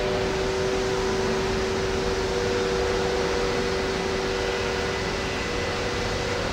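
Steady whirring hum of a fan or blower, with two constant tones in the hum and an even hiss over it.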